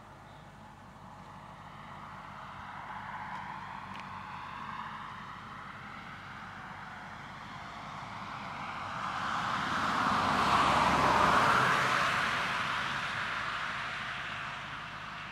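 BMW E60 545i with an AC Schnitzer performance exhaust driving past on the road. The sound builds slowly as the car approaches, peaks about eleven seconds in as a rush of tyre noise over a low engine note, then fades as it drives away.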